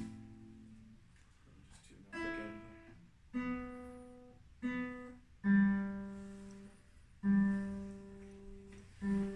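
Acoustic guitar played unamplified, heard in the room's natural sound: slow, separate strokes, about six in all, each left to ring and fade before the next.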